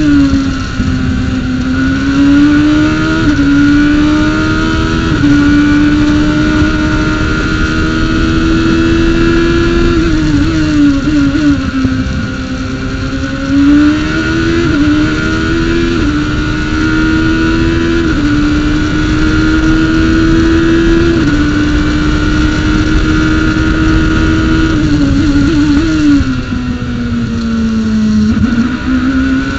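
Formula Atlantic race car's engine heard onboard at speed, pulling through the gears with quick upshifts, then falling in pitch through braking and downshifts for corners, over and over around the lap. A steady high whine runs alongside the engine.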